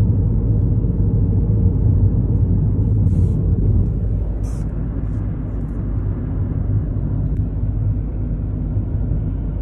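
Steady low rumble of a car driving at road speed, heard from inside the cabin: tyre and engine noise. Two brief soft rustles, about three and four and a half seconds in.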